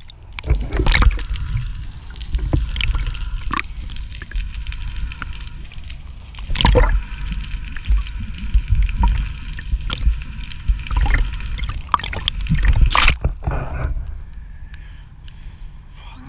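Water sloshing and gurgling against the hull of a small fishing boat. A low rumble runs under it, with irregular knocks and thumps, the biggest about seven seconds in and again near thirteen seconds.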